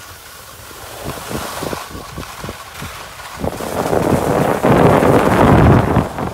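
Skis scraping and hissing over groomed snow while skiing downhill, with wind rushing over the microphone. Short scraping strokes fill the first half; from about halfway in, the wind noise builds and grows loud as speed picks up.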